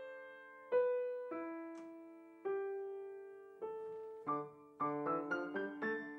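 Grand piano playing solo: a few sustained chords that ring and fade, then a quicker run of shorter chords from about four seconds in.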